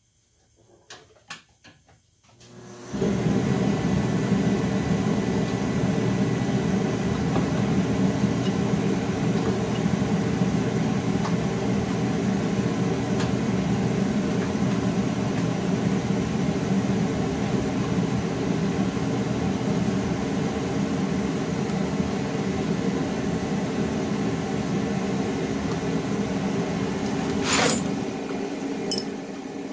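A few quiet clicks, then about three seconds in a machine starts up and runs with a steady, loud hum. A sharp click or knock comes near the end, just before the sound drops off.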